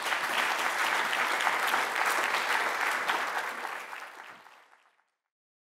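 Audience applauding, a steady dense clatter of clapping that fades away after about four seconds.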